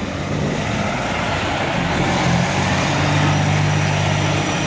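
Kenworth prime mover's diesel engine running as the truck pulls away with a container trailer, its engine note stepping up in pitch about halfway through.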